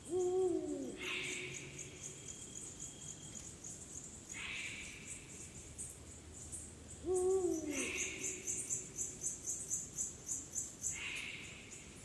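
A Eurasian eagle-owl gives two deep hoots about seven seconds apart; each is held for about a second and then falls away. Behind it, insects call in repeated short rasps, and a fast high-pitched pulsing trill runs in the second half.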